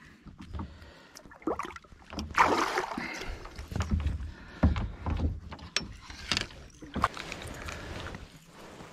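Splash of a largemouth bass being let go back into the water, about two and a half seconds in, followed by scattered knocks and clicks of fishing gear against the hull of a plastic kayak as the rod is picked up.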